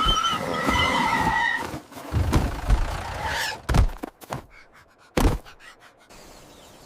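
Vehicle tyres squealing in a skid, then a rough low rumble broken by several heavy thumps.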